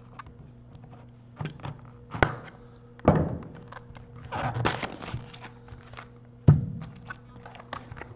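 Scissors and fingers cutting and peeling the plastic wrap off a cardboard trading-card box, with rustling of the wrap. Several sharp thunks come as the box is handled and knocked against the cloth-covered table, the loudest about three seconds in and again near the end.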